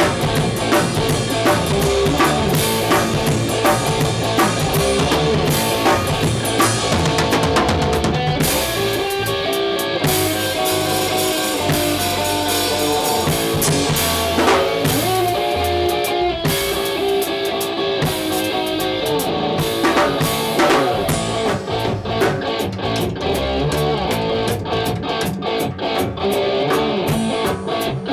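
A band playing a live instrumental rock jam: electric guitar, bass guitar and a drum kit.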